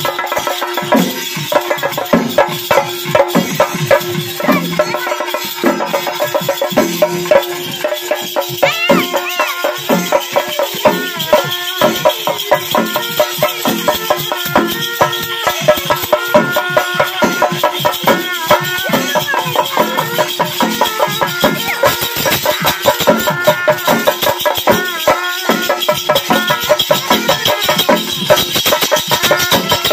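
Kerala temple procession music: fast, steady drumming with jangling metal percussion, over a steady held tone and a wavering melody line higher up.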